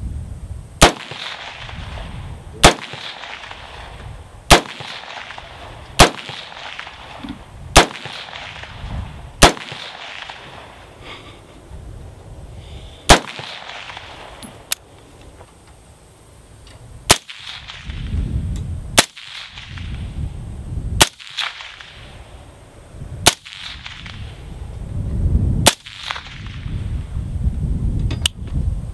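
AR-15 rifle firing single shots, about one every one and a half to two seconds, thirteen in all, with a pause of about four seconds midway. The first seven shots are fired without a suppressor.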